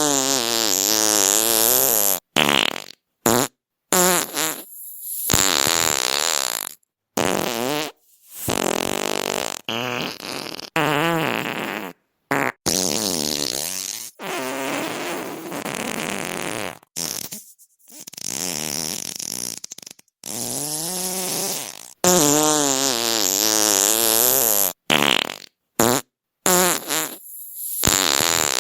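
A string of fart sound effects played back to back, about twenty of them. Each is a buzzing tone whose pitch wobbles, some lasting under half a second and others two or three seconds, with abrupt cuts to silence between them.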